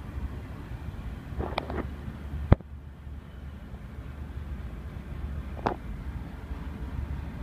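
Double-stack intermodal freight train rolling past: a steady low rumble, with two brief high squeals about a second and a half and five and a half seconds in, and one sharp click about two and a half seconds in.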